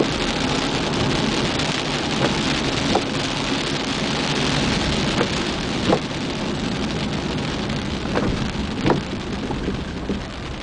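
Steady rushing hiss of rain and wet tyres over a car's running, heard from inside the car, with pairs of short knocks from the windshield wipers about every three seconds.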